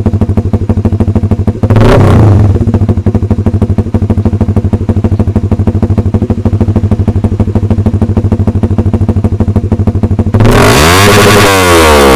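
Honda Supra GTR 150's single-cylinder engine idling through an aftermarket exhaust, with a quick throttle blip about two seconds in. Near the end it is revved hard, the pitch climbing and then falling back.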